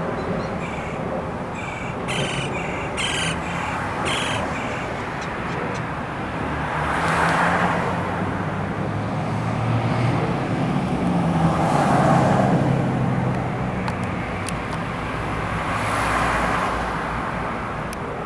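Road traffic passing: vehicles swell up and fade away about three times, around seven, eleven and sixteen seconds in, over a steady traffic hum. In the first few seconds a bird calls in short repeated notes.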